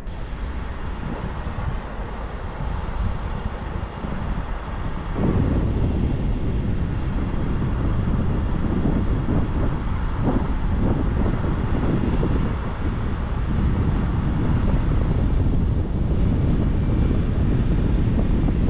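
Wind buffeting the microphone over the rumble of a moving car, a steady rushing noise heavy in the lows that grows louder about five seconds in.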